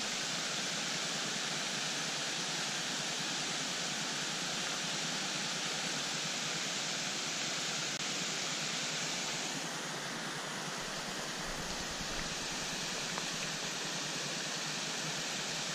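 Water pouring over a low concrete dam in several small falls: a steady rushing that drops slightly in level about ten seconds in.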